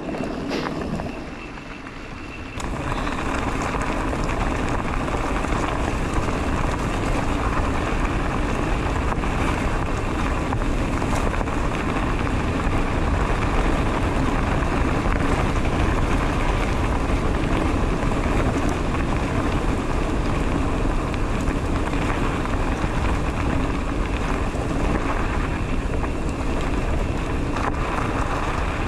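Steady rush of wind on the action camera's microphone while riding a mountain e-bike, rising to a loud, even rush about two and a half seconds in.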